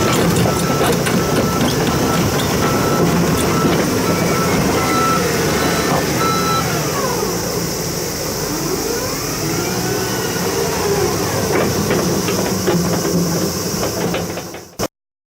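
Komatsu HB365 hybrid hydraulic excavator running heavily, its travel alarm beeping steadily until about halfway through, then some rising and falling squeaks. The sound fades and cuts off shortly before the end.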